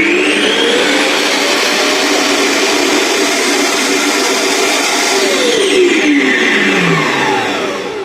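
Roomba Clean Base auto-empty dock running its suction fan to empty the robot's dustbin: a loud vacuum rush that spins up at the start and winds down with a falling whine over the last few seconds, stopping near the end.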